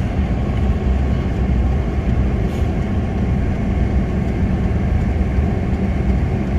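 Steady low rumble of a car driving along a road, heard from inside the vehicle: engine and tyre noise.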